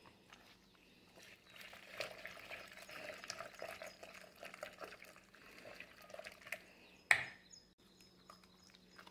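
Hand whisk churning split cream in a steel bowl: faint wet squelching and small clicks as the butter grains separate from the milk, busiest in the middle, with one sharp knock of the whisk on the bowl about seven seconds in.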